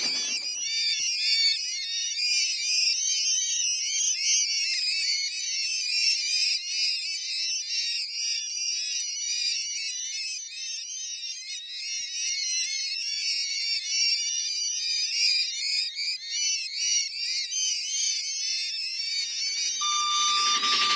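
Dense, steady chorus of many small high-pitched chirps overlapping without a break, a night-creature ambience from the Big Thunder Mountain ride's sound effects. Near the end it fades under the start of a train sound with a whistle tone.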